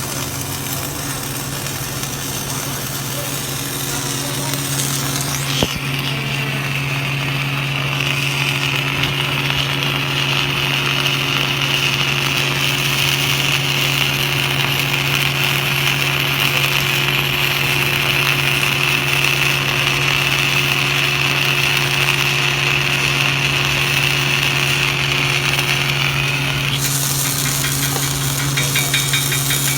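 A welding arc burning steadily for about twenty seconds, starting and cutting off abruptly, over a constant low machine hum. Rapid, even tapping starts near the end.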